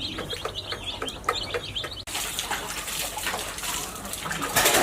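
Small birds chirping in quick repeated calls for about two seconds. After a sudden cut, water runs steadily.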